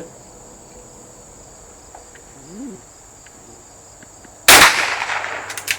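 A single loud gunshot about four and a half seconds in, its report dying away over about a second, over the steady high drone of crickets.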